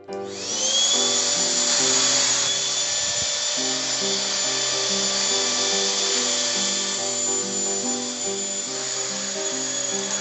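BISSELL Featherweight stick vacuum switched on: its small motor spins up with a rising whine that levels off within about a second, then runs steadily with a high whine over a rushing noise of suction.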